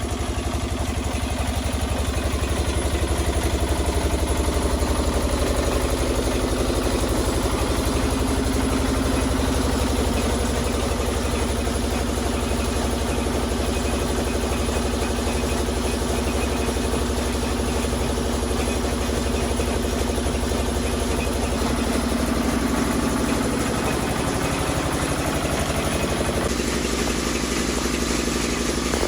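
An engine running steadily, its hum and noise holding even, with a change in its sound a few seconds before the end.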